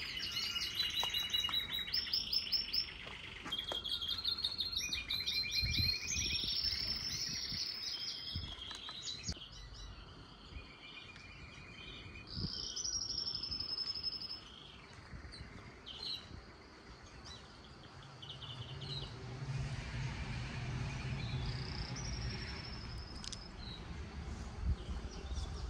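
Small birds chirping and singing in quick repeated strings of high notes, busiest in the first half and thinning out after about 14 seconds. A low rumble comes up in the last several seconds.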